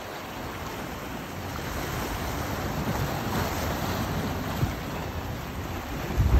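Wind and sea water rushing steadily, with gusts buffeting the microphone; the loudest buffet comes near the end.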